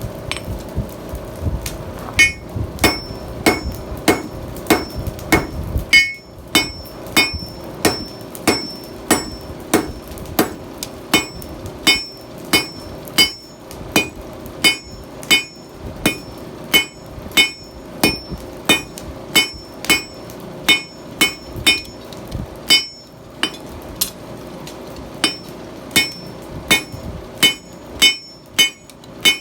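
Blacksmith's hammer striking steel on an anvil in a steady rhythm, about one and a half to two blows a second with a bright metallic ring on each, as a steel file is forged into a flint striker; the blows pause briefly near the end. A low rumble sits under the first few seconds and stops about six seconds in.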